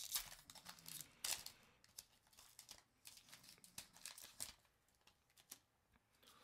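Foil wrapper of a Pokémon trading card booster pack being torn open and crinkled in a series of short crackling tears, loudest in the first second and a half and dying away about two-thirds of the way through.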